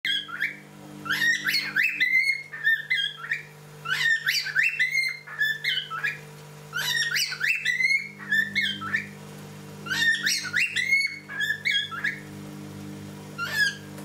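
Cockatiel whistling the same short tune over and over, one phrase about every three seconds, with a steady low hum underneath.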